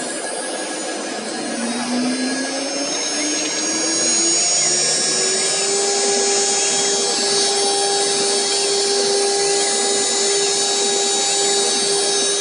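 Acctek AKG6012 CNC router's spindle spinning up: a whine rising in pitch for about four seconds, then holding as a steady high whine at running speed over a noisy hiss.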